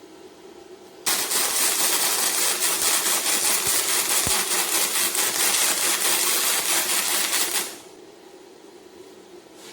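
Welding arc from a MIGVAN M140 inverter welder, crackling and hissing steadily for about six and a half seconds. It strikes abruptly about a second in and breaks off near the end.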